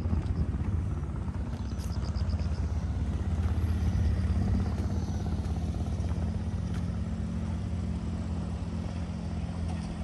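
An engine running with a steady low hum, growing a little louder toward the middle and easing off again.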